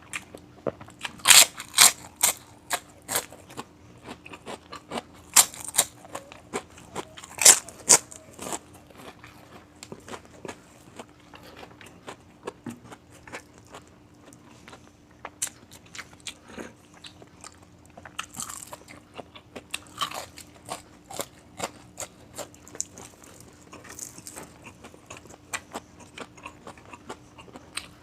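Close-miked eating of crispy fried food: sharp crunching bites and chewing, loudest in a few clusters in the first eight seconds, then softer, steady crunchy chewing.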